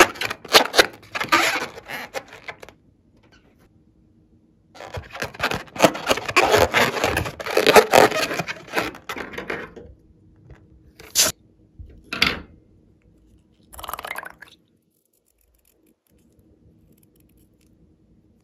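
A long latex balloon handled, rubbed and squeezed by hand: rubbery scraping and crackling in a short stretch at the start and a longer, louder stretch from about five to ten seconds in. Three brief sharp sounds follow, then quiet.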